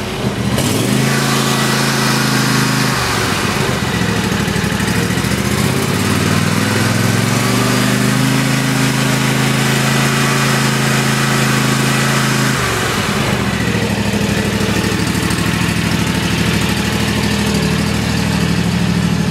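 Riding mower engine running just after a cold start, its speed dropping about three seconds in, picking up again a few seconds later, dipping briefly near the end and then holding steady.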